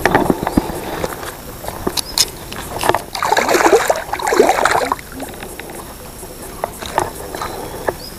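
Water splashing for about two seconds, starting about three seconds in, as a hooked hampala thrashes at the surface. Scattered sharp clicks are heard around it.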